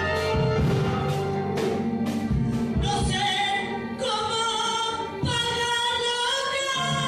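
Church worship music: a band with regular drum strikes, joined about three seconds in by a woman's singing voice holding long notes.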